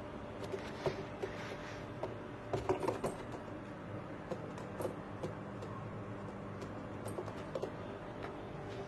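Pigeons shuffling and pecking: scattered light taps and scratches, busiest about two and a half to three seconds in, over a steady low hum.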